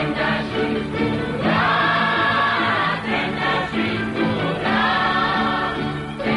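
Aromanian folk song: voices singing together in long held phrases over instrumental accompaniment.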